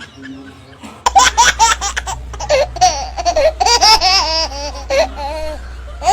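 High-pitched laughter that starts suddenly about a second in, in loud, rapid bursts of giggling with quick rises and falls in pitch.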